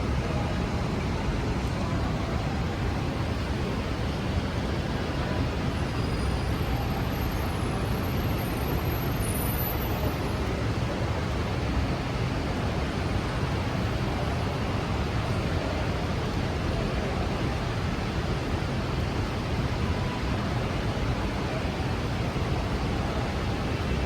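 Steady city street noise on a rainy day: traffic and the even hiss of rain and tyres on wet pavement, with no single event standing out.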